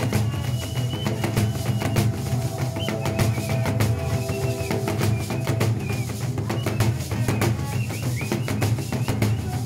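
Large hide-covered drums beaten with sticks in a fast, driving, continuous rhythm for dance, with high held tones sounding above them.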